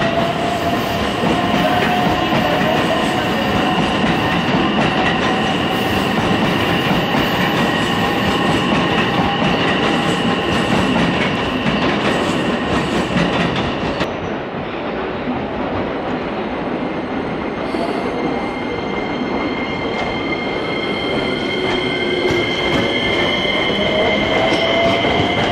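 Electric commuter train at a station platform: wheels and running gear rumble under steady high squealing tones. In the last few seconds a motor whine climbs in pitch as a train picks up speed.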